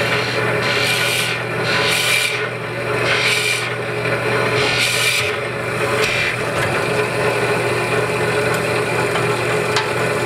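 Horizontal boring machine running with a steady hum while its bit bores into the end grain of a wooden workpiece in about five short rasping bursts over the first six seconds. After that only the motor hum remains.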